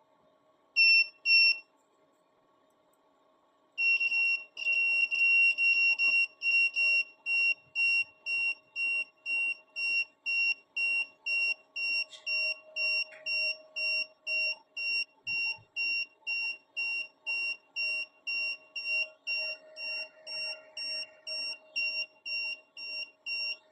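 Small electronic buzzer driven by a BD139 transistor circuit, sounding a high steady-pitched tone: two short beeps, a pause, then a steady run of even beeps about two a second.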